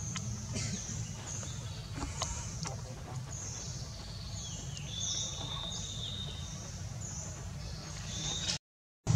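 Outdoor ambience: short, high bird chirps repeating throughout over a steady low rumble, with a few faint clicks. The sound cuts out abruptly near the end.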